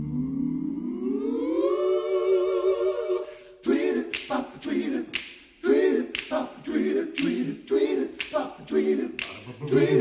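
A cappella vocal music: a sung tone slides upward and holds, then about three and a half seconds in a rhythmic part starts, with sharp snapping beats under short sung chords.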